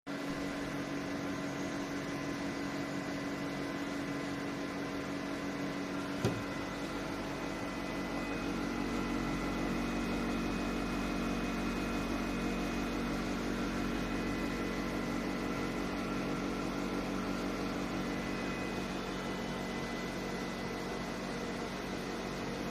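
Wimanair 9000 BTU portable air conditioner running with a steady whir and hum of several held tones. There is a single click about six seconds in, after which a deeper hum comes in.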